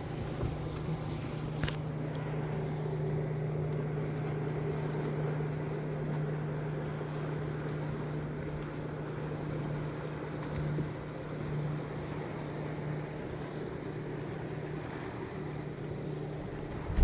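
60 hp outboard motor running at a steady low speed, pushing the boat along, with wind on the microphone.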